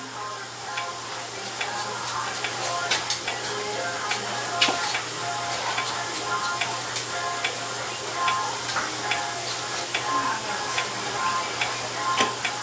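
Hair scissors snipping wet curly hair: irregular sharp clicks, a few a second, over a steady crackly hiss.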